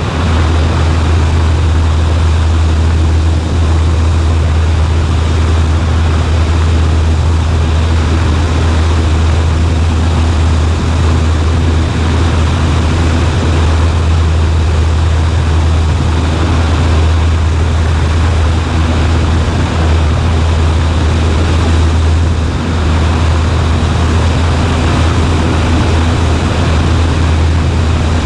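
Cessna 140A's single piston engine and propeller droning steadily, with no change in pitch or power.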